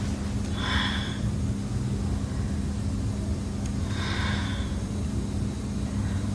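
Two heavy, snore-like breaths about three seconds apart, over a steady low hum: the heavy breathing that the investigators take for a snoring ghost.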